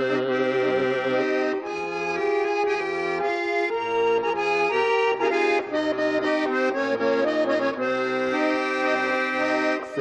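Instrumental break in a folk-style song: an accordion plays a melody over held chords and a bass line.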